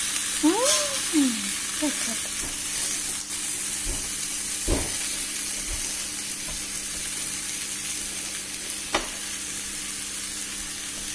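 A potato and pea stuffing sizzling in a hot non-stick frying pan while it is stirred with a wooden spoon, a steady frying hiss. There are a couple of light knocks, about midway and near the end.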